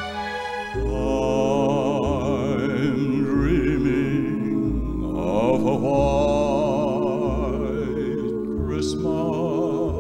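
Music: an instrumental break in a slow Christmas song, a lead melody with wide vibrato over bass notes that change about once a second.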